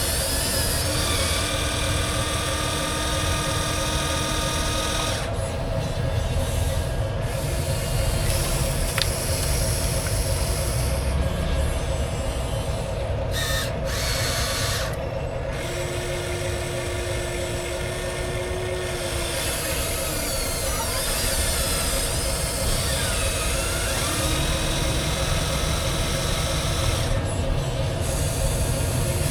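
Small electric motors and gearboxes of radio-controlled toy construction vehicles whining as they run, a steady hum over a low rumble, with extra whines starting and stopping as different functions are driven.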